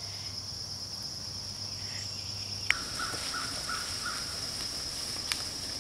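Steady high-pitched chorus of insects in woodland. A sharp click about three seconds in, followed by a few faint short calls.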